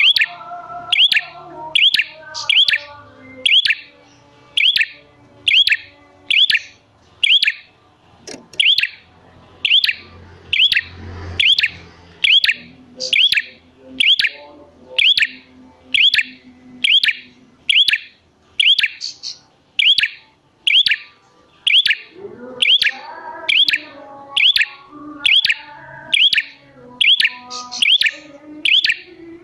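A prenjak (prinia) calling the same sharp chirp over and over at an even pace, a little more than once a second, as a lure call to set other prenjak singing.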